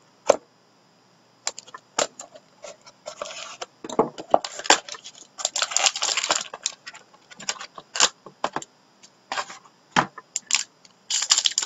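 Plastic shrink wrap on a small cardboard trading-card box being slit, torn and crinkled off, then the box opened and its contents handled, with a run of sharp clicks and taps between crackly stretches.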